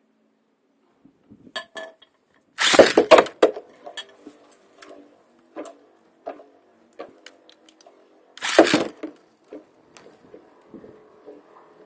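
Two Metal Fight Beyblades, Storm Pegasus and Lightning L-Drago, spinning and colliding: scattered metallic clinks, with two loud clusters of clashing impacts, about three seconds in and again after eight seconds, over a faint whir of the spinning tops.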